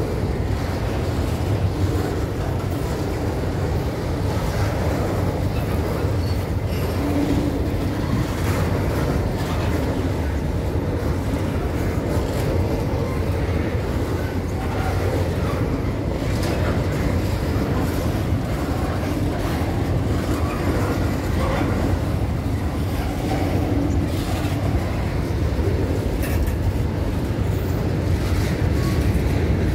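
Freight train of covered hopper wagons rolling past: steady low rumble of steel wheels on the rails, with scattered clicks and knocks from the wheels and running gear.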